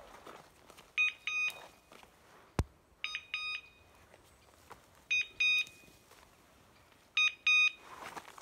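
Electronic beeper collar on an English setter sounding short double beeps about every two seconds, the signal hunters follow to find a pointing dog in thick cover. There is one sharp click about two and a half seconds in, and faint rustling.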